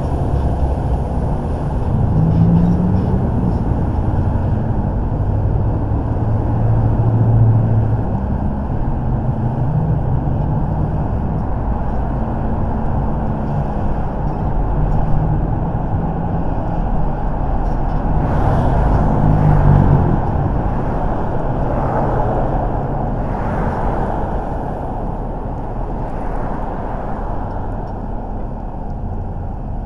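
Car engine and road noise while driving. The engine note rises and falls with speed, and a louder, hissier stretch comes about two-thirds of the way in.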